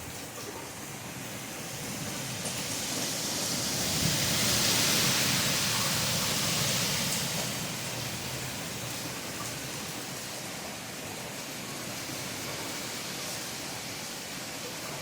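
Steady rain, an even hiss that swells louder for a few seconds near the start and then eases back.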